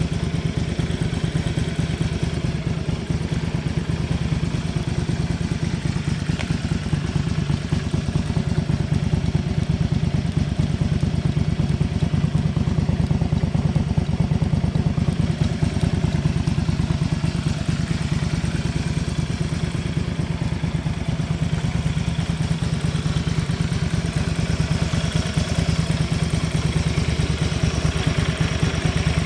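Honda VT250 Spada's 250 cc V-twin engine idling steadily, with no abnormal engine noise.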